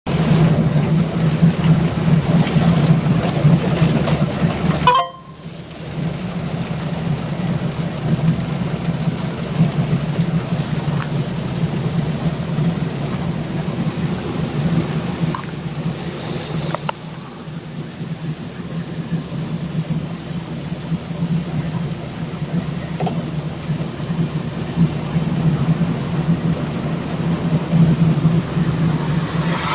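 Rain falling on a car's roof and windscreen, mixed with wet-tyre hiss and a steady engine hum, heard from inside the cabin of a moving car. The noise drops away sharply about five seconds in, then carries on a little quieter, with a few faint knocks later.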